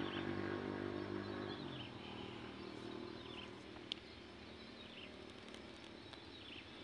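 A distant motor vehicle engine's steady hum fading away over the first two seconds, leaving quiet rural ambience. A bird gives short, falling chirps every second or two, and there is a single sharp click about four seconds in.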